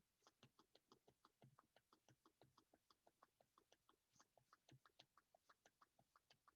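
Faint, rapid, even clicking, about six clicks a second, from the pump inflating the chair's exercise ball.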